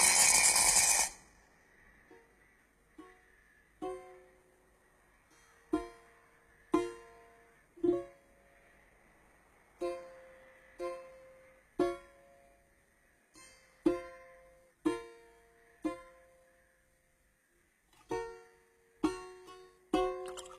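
Film score: loud music cuts off about a second in, followed by a slow melody of single plucked-string notes, each struck sharply and fading away.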